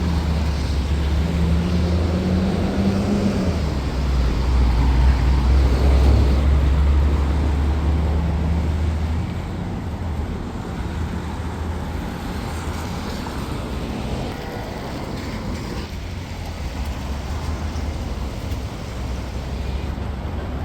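Street traffic, with a large vehicle's engine running close by. Its low hum is loudest about five to seven seconds in and fades after about nine seconds, leaving steady traffic noise.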